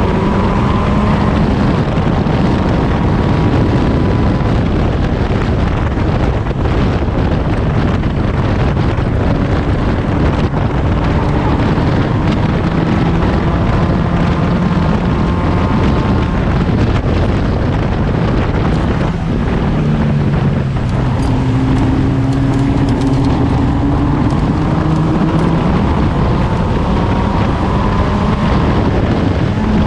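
Seven-style club race car's engine heard from the open cockpit at racing speed, its pitch climbing and falling through the gears and corners. There is a sharp drop about two-thirds of the way through, then it climbs again. Heavy wind rush runs under the engine.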